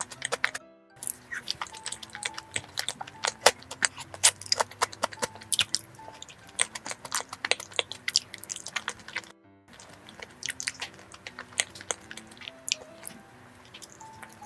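Close-miked chewing and biting of soft filled glutinous rice cakes, many wet mouth clicks at an irregular pace, over quiet background music. The sound drops out briefly twice, about a second in and about nine and a half seconds in.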